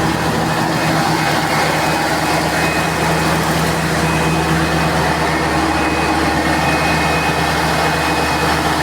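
600 kVA Caterpillar C18 inline-six diesel generator set running at a steady, constant speed, an even, unchanging engine drone.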